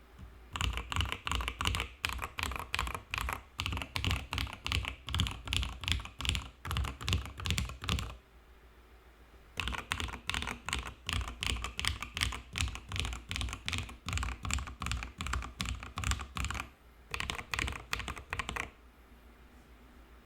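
Typing on a PLA75 custom mechanical keyboard with an FR4 plate, lubed FFFF linear switches and IFK Musubi keycaps: quick runs of keystrokes, with a pause of about a second and a half some eight seconds in, a short break near 17 seconds, and the typing stopping a little before the end.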